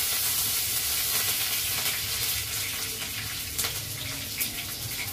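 A tadka of mustard seeds, cumin, curry leaves and green chillies sizzling in hot oil in a kadhai, spluttering because the leaves and chillies are wet. It is a steady hiss that slowly fades, with a few sharp pops in the second half.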